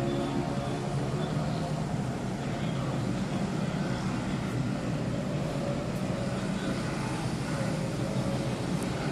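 Motorcycles with loud aftermarket exhausts running and revving on the road below, heard from high above as a steady engine din mixed with traffic.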